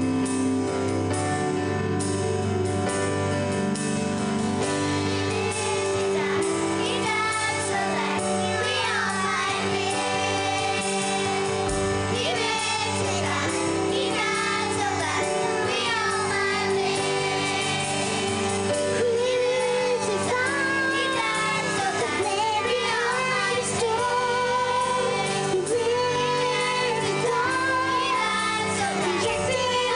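A live band plays a slow worship song with sustained chords; about six seconds in, children's voices start singing over it: a young girl singing solo into a microphone, with a children's choir singing along.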